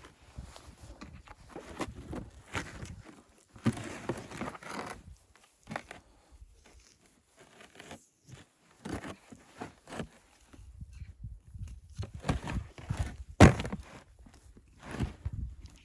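Irregular crunches, rustles and knocks of a person moving about and handling things, likely steps in snow, with one sharp knock about three-quarters of the way through.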